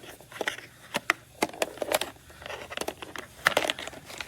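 Irregular rustling and crinkling with small sharp clicks as a gaming mouse's loose, worn braided cable sleeve is handled and pinched.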